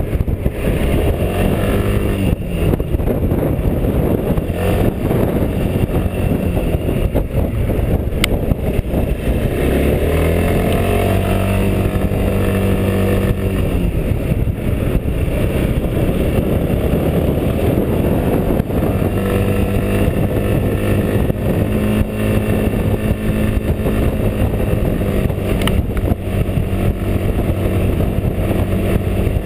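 Quadro 350D tilting three-wheel scooter's single-cylinder engine running under way uphill, heard from the rider's chest, its pitch rising and falling with the throttle through the bends.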